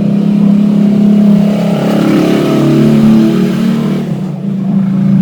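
A motor vehicle's engine running steadily close by, rising in pitch and level about two seconds in and easing back near the end, as if revving or passing.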